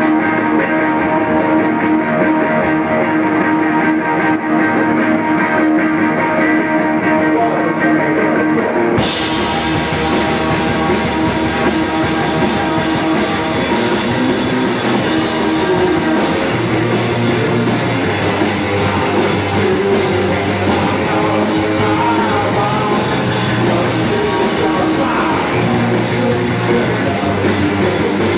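Live rock band: an electric guitar plays on its own, then about nine seconds in the drums, cymbals and bass come in and the full band plays loud.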